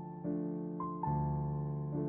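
Soft, slow background piano music: sustained notes and chords that each start sharply and slowly fade, with a new one struck roughly every half second to second.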